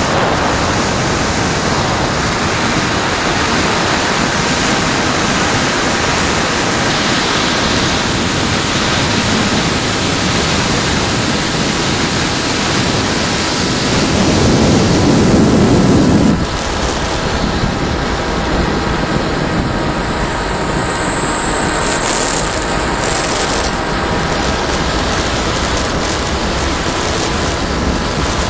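Airflow rushing over the model glider's onboard camera microphone, swelling louder for a couple of seconds about halfway. Just after that, a high-pitched whine from the glider's electric motor starts and keeps running, its pitch dipping and then rising again.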